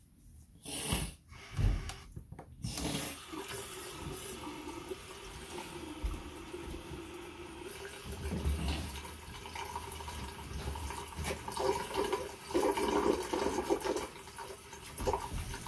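Bathroom sink tap running, water pouring and splashing into the basin. A few sharp knocks come in the first couple of seconds before the water settles into a steady flow.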